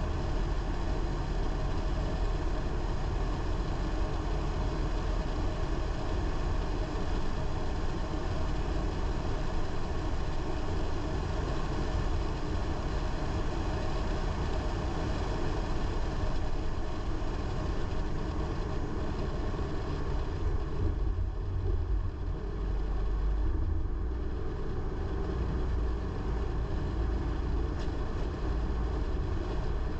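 Car driving along a road: a steady rumble of engine and tyre noise, strongest in the low end, with the hiss easing for a few seconds a little past two-thirds of the way through.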